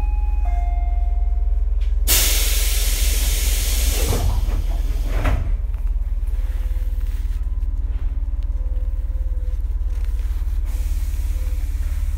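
Tobu 8000 series electric commuter train with a steady low hum from its running equipment. About two seconds in, a loud burst of compressed-air hiss from the train's pneumatic equipment lasts about three seconds, then the hum carries on alone.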